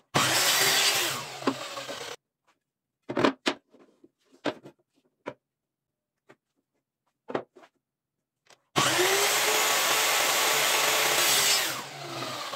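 Electric saw cutting eucalyptus pallet slats to length, two cuts: one lasting about two seconds at the start and a longer one starting about nine seconds in and dying away near the end. A few sharp knocks of wood being handled in between.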